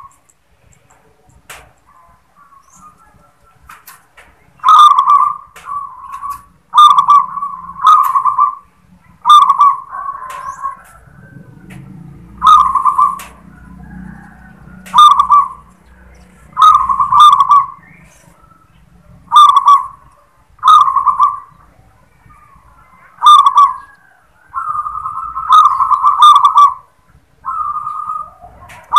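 Zebra dove (local perkutut) singing the 'klar ketek kuk' song, about a dozen cooing phrases repeated every one to two and a half seconds. The singing starts about four seconds in, and one phrase near the end runs longer than the rest.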